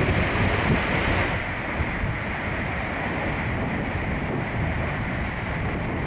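Storm surf breaking and washing foam up the shore, with wind rumbling on the microphone. Steady throughout, easing slightly after about a second and a half.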